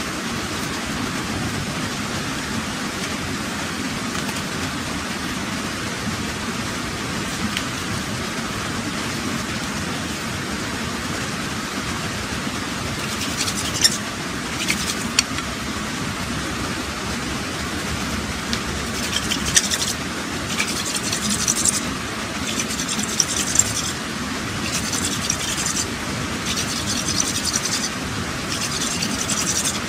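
Scraping of a thin stick worked by hand, in short repeated strokes. It starts with a few single scrapes about halfway in, then comes in steady runs toward the end, over a constant rushing background noise.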